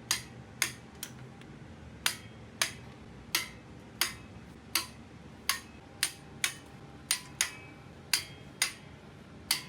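A series of about fifteen sharp metallic taps, each with a short ring, irregularly spaced at roughly one to two a second: metal tools striking or clicking against metal parts.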